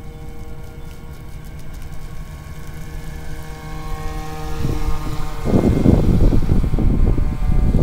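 Electric V-hull RC boat running fast across the water, its motor giving a steady whine. From about five and a half seconds in, a loud, irregular low rumble of noise covers it.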